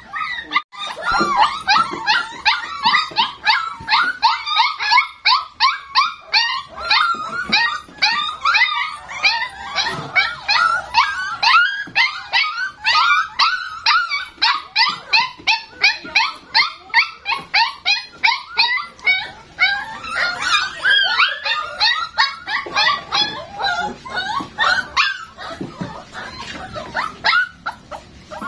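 A litter of young puppies yelping and whining together, a rapid run of high-pitched overlapping cries, several a second, without a break.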